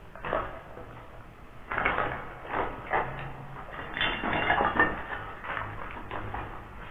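Irregular crunching footsteps, scrapes and knocks on debris. They come thickest in the middle and thin out near the end.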